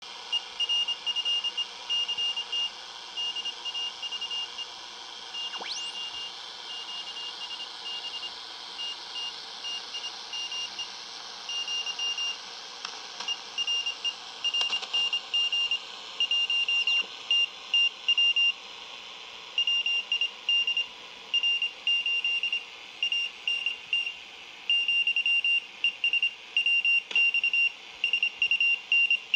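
Morse code (CW) on the 40-metre band received on a National NC-101X shortwave receiver: a single high beep tone keyed on and off in dots and dashes over a steady hiss of static. A faint whistle sweeps upward about six seconds in.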